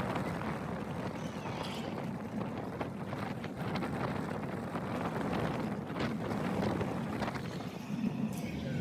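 Wind rushing over the microphone, mixed with the steady rumble of a steel roller coaster train running along its track.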